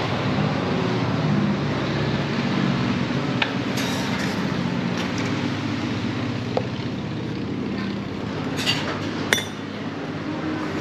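Clinks and clicks of takeaway cups, lids and a stainless steel milk jug being handled on a steel counter, a few separate knocks with the loudest near the end, over a steady low background hum.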